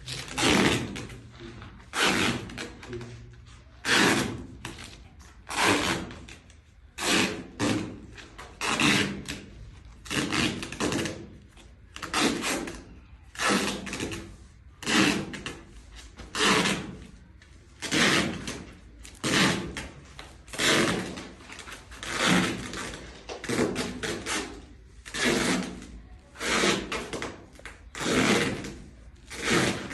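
A long run of rasping, scraping strokes, about one a second, each lasting a fraction of a second, from hand work at a pipe or wall.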